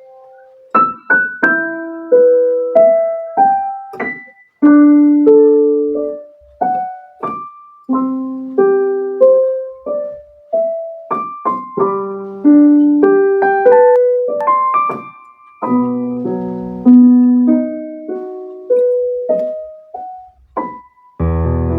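Casio CT-S1 keyboard playing one of its vintage tones: a melody over chords, each note struck and then fading away. In the last moment a fuller, sustained passage of music begins.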